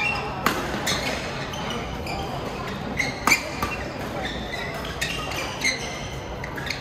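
Badminton rackets striking a shuttlecock during a doubles rally: several sharp hits at uneven gaps, with shoes squeaking on the court floor in a large echoing sports hall.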